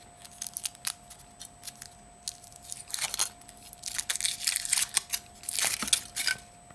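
Foil wrapper of a Kinder Surprise chocolate egg being torn open and crinkled, in irregular crackling bursts with scattered clicks, busiest in the second half.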